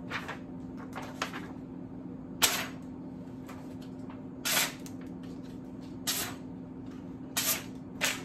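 Freshly sharpened kitchen knife slicing through a sheet of paper: a series of short, crisp hissing cuts every second or two, the loudest about two and a half seconds in. The clean slicing is the usual test that the edge is sharp. A steady low hum runs underneath.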